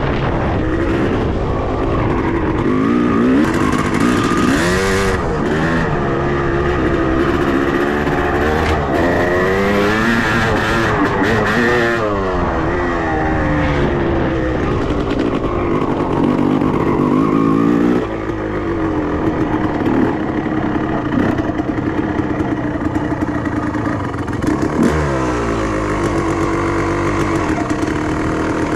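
Honda CR two-stroke motocross bike engine revving up and down as it is ridden, its pitch rising and falling with each burst of throttle. A little past halfway it eases off to a quieter, lower and steadier note.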